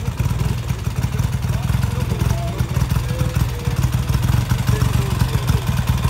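BSA Gold Star single-cylinder four-stroke motorcycle engine running steadily with a rapid low exhaust beat, no revving.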